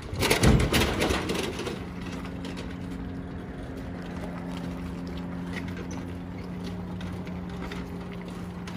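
Mud mower's small engine running steadily as the machine is driven across pavement, after a loud rushing burst in the first second and a half.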